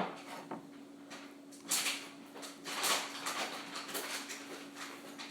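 Homemade toothpaste slime being kneaded by hand: soft sticky squishing and peeling noises in a few short bursts.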